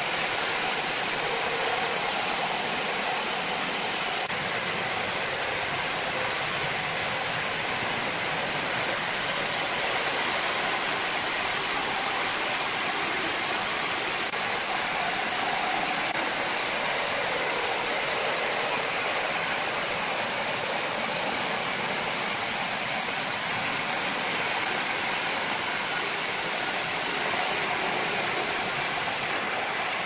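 Large horizontal band sawmill running steadily, its blade cutting lengthwise through a big log.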